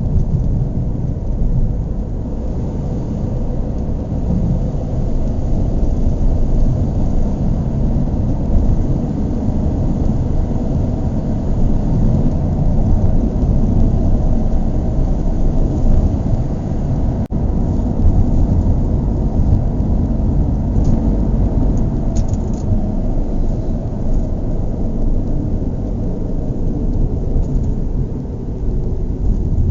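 Car engine running: a steady low rumble.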